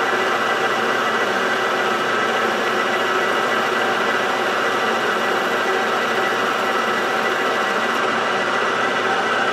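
Small hobby metal lathe running steadily with a steady gear whine, as the tool bit takes a finishing cut on the spinning metal part.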